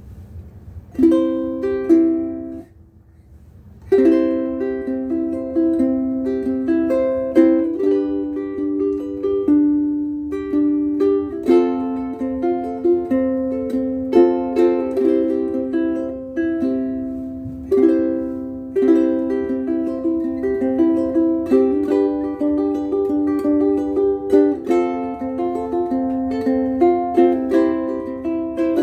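Ukulele strung with Aquila B-black strings being played: a melody of plucked notes and chords. It starts about a second in, pauses briefly, then plays on steadily.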